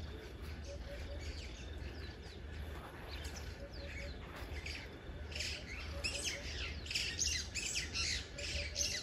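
Many birds chirping and calling, the quick high chirps growing busier and louder about halfway through, with a lower three-note call repeating every second or two, over a steady low rumble.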